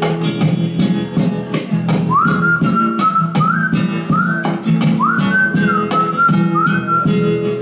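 A man whistling a melody over a strummed acoustic guitar, about six phrases, each sliding up into a held note.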